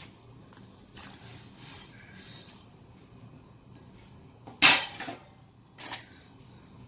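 Soft rustling as dry rice vermicelli is dropped into a steel pot of water, then two sharp clanks of steel kitchenware, the louder one about four and a half seconds in and a smaller one a second later.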